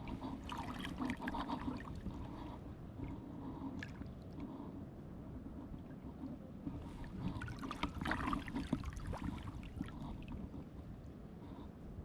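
Water splashing and trickling in two irregular bouts, over a steady low rumble of wind on the microphone.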